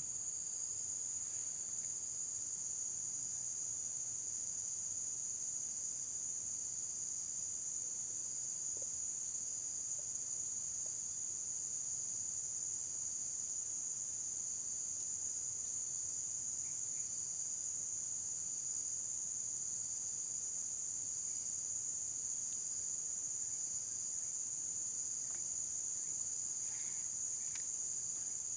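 Steady, high-pitched chorus of insects, one unbroken shrill drone with no pauses.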